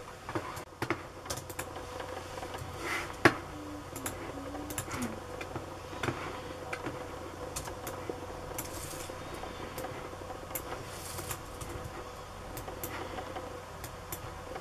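Irregular key and mouse clicks from typing and clicking on a laptop keyboard and computer mouse, with one sharper, louder click about three seconds in, over a faint steady hum.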